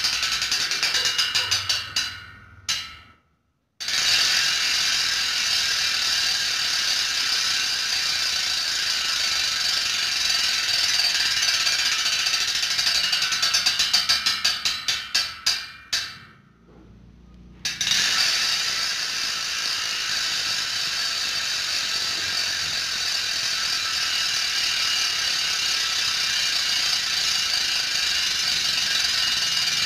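Sagmit V12 mountain bike rear hub freewheeling as the wheel is spun: a fast, steady buzz of pawl clicks. Twice, about two seconds in and about fifteen seconds in, the buzz slows into separate clicks and stops, then starts again at full speed.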